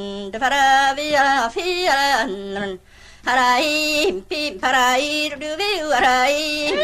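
A woman singing unaccompanied in canntaireachd, the mnemonic syllables used for Highland bagpipe tunes, imitating pipe music with quick runs of notes. She breaks off briefly about three seconds in.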